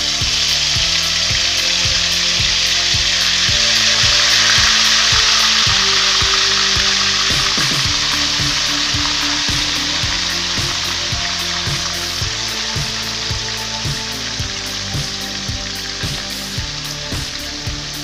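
Yoghurt-marinated chicken frying in hot oil in a wok: a loud sizzle breaks out all at once as the wet pieces hit the oil, swells over the first few seconds, then slowly eases. Background music with a steady beat plays underneath.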